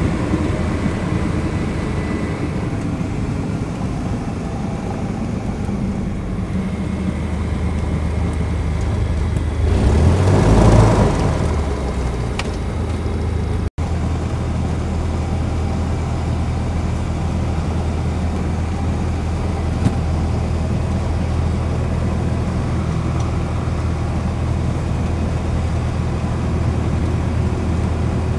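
Single-engine light aircraft's piston engine running at low power, a steady low drone heard inside the cabin while the plane taxis. A louder rushing swell rises and fades about ten seconds in.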